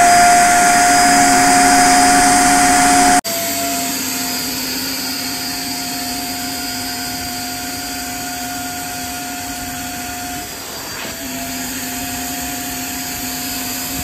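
STARQ 1000-watt wet and dry vacuum cleaner running with its triangular upholstery nozzle on fabric: a steady motor whine over rushing air. About three seconds in the sound cuts out for an instant and comes back quieter, and about three-quarters of the way through the pitch briefly sags before recovering.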